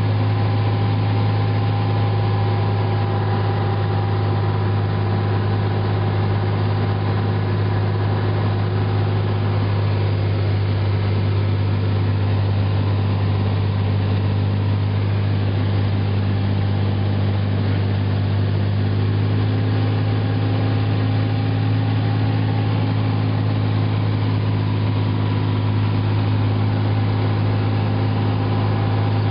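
Cessna 182's six-cylinder piston engine and propeller droning steadily, heard from inside the cabin during the approach to landing. The tone shifts slightly about two-thirds of the way through.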